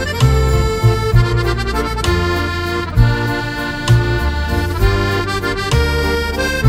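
Instrumental music: held chords over a bass line whose notes change roughly once a second.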